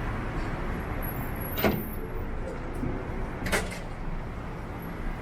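Steady city street traffic rumble, with two sharp knocks about two seconds apart.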